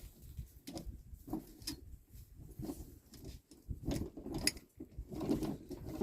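A 5/8 wrench being worked on a bolt: irregular metallic clicks and clinks with handling noise, busier near the end.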